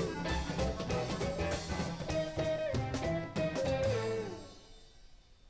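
Background music with a drum beat and melodic instruments, fading out about four seconds in.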